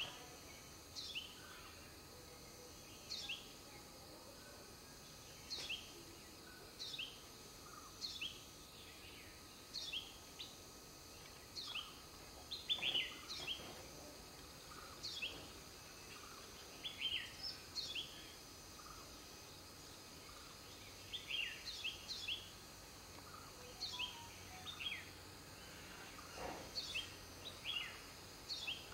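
Small bird chirping outdoors: short, high, downward-slurred chirps, often in twos or threes, repeated every second or two. A faint steady high hiss runs underneath.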